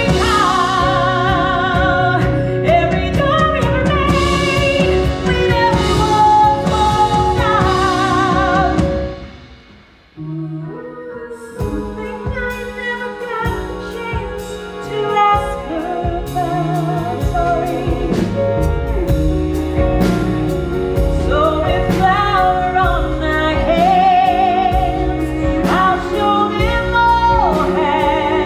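A woman singing a musical-theatre song with strong vibrato on held notes, backed by a band. About ten seconds in, the music fades almost to nothing, then starts again softly on a low note and builds back up.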